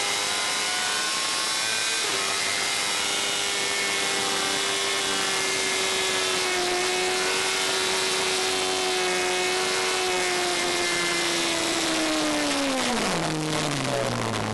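Fury racing car's engine at high, steady revs, heard onboard from the open cockpit with wind noise over it. Near the end the revs drop steeply as the car slows.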